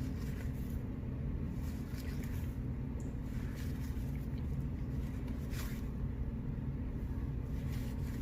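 Steady low hum with a few brief, light rustles and clicks of baseball cards being flipped through by hand.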